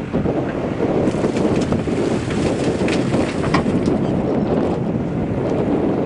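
Wind buffeting the microphone over a backhoe loader's running engine, with scattered knocks and rattles between about one and four seconds in as its bucket drops a carcass and wet mud into a trailer.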